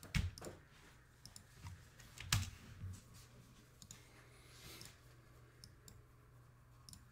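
Scattered clicks of a computer mouse and keyboard, two of them louder than the rest, over a steady low hum.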